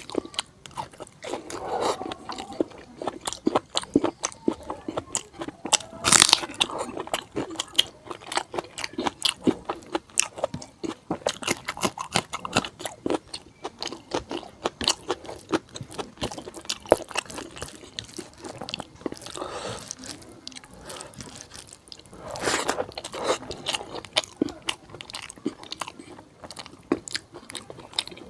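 Close-miked eating of spicy fatty pork curry with bamboo shoot and rice: a dense run of chewing and biting clicks and crunches, with louder bursts about six seconds in and again around twenty-two seconds in.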